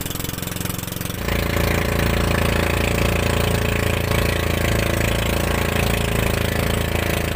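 Outrigger fishing boat's engine running steadily, heard from on board. It gets louder about a second in and then holds an even note.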